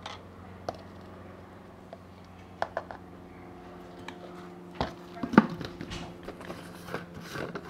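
Scattered light clicks and knocks of a tub of protein powder, its scoop and a shaker bottle being handled, over a steady low hum.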